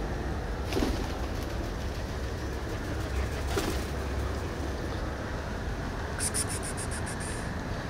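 Steady low rumble of distant road traffic. Near the end comes a quick run of high, thin chirps, about eight a second.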